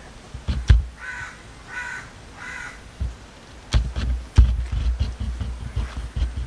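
A crow caws three times in quick succession about a second in. Several sharp knocks and low thumps are scattered through the rest.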